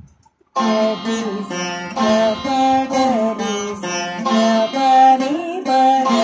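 Saraswati veena playing a phrase of the Carnatic raga Hamsadhwani: a run of plucked, ringing notes with sliding pitch bends (gamakas). The playing starts about half a second in after a brief silence.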